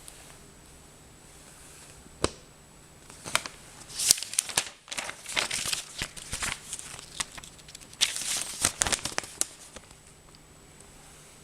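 Unboxing packaging being handled: a single sharp click about two seconds in, then several seconds of crinkling and crackling with many sharp clicks, stopping a couple of seconds before the end.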